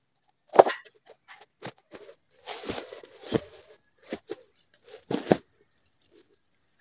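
Footsteps in rubber boots tramping through grass and dry leaves, with rustling of brushed plants: a series of uneven steps and rustles, the sharpest about half a second in.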